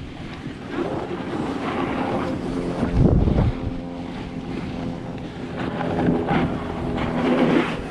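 Snowboard sliding and carving over packed snow: a scraping hiss that swells with the turns, loudest about three seconds in and again near the end, with wind buffeting the microphone.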